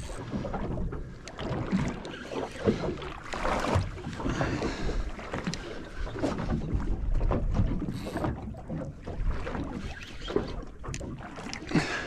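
Wind buffeting the microphone and water slapping against a small boat's hull, with scattered knocks and clicks of handling on deck.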